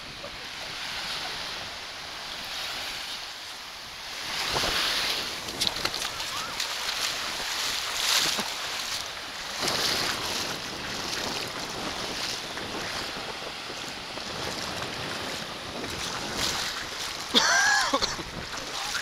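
Small waves washing into clear shallow seawater, surging every few seconds, with wind buffeting the microphone. A brief, loud pitched call cuts in near the end.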